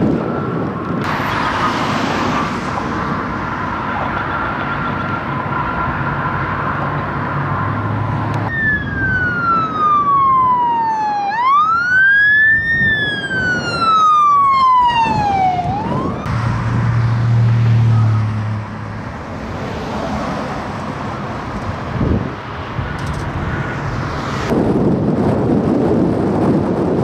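Ambulance siren wailing in slow falling and rising sweeps for several seconds, then cutting off as the vehicle's engine passes close by. A steady rushing background fills the rest.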